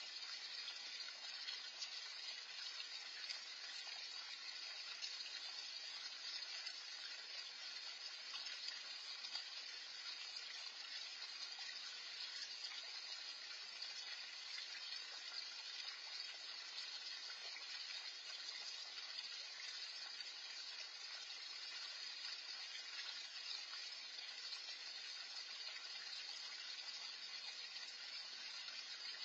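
Steady, faint splashing and trickling of a small backyard pond's fountain falling into the water.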